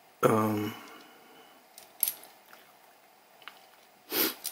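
Faint clicks and taps of a small metal camera rod clamp being handled and turned in the fingers. A short hummed 'mm' from a man's voice comes about a quarter second in, and a brief rustle near the end.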